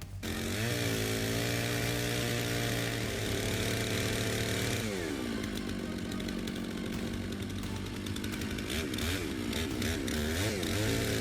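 Chainsaw running at high revs under cutting load, dropping to lower revs about five seconds in, then revved up and down several times in quick succession before going back to high revs near the end.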